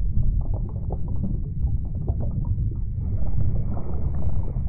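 Underwater ambience: a dense low rumble with many faint scattered clicks and crackles over it.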